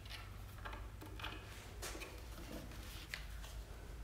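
Faint scattered clicks and rustles of a cordless drill and plywood workpiece being handled, over a low steady hum; the drill motor does not run.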